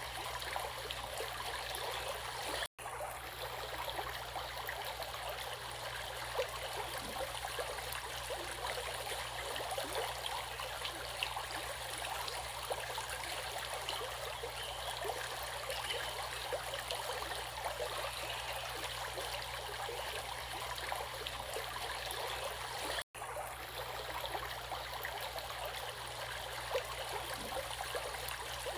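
Flowing water rushing steadily, with two momentary cuts to silence, about 3 seconds in and about 23 seconds in.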